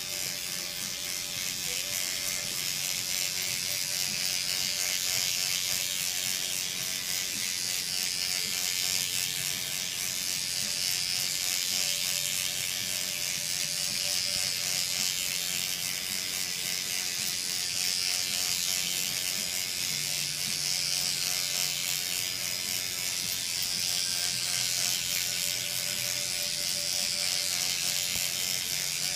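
Electric derma pen (microneedling pen) running with a steady, high-pitched buzz as its motor drives the needle cartridge in and out while the pen is worked over the skin.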